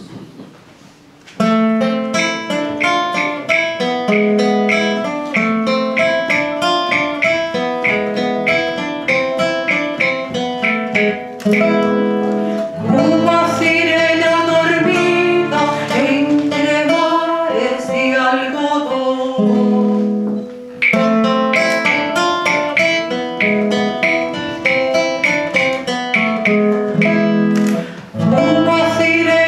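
Classical guitar playing a plucked introduction that starts about a second and a half in; a woman's singing voice joins at about thirteen seconds, drops out while the guitar plays on alone, and comes back near the end.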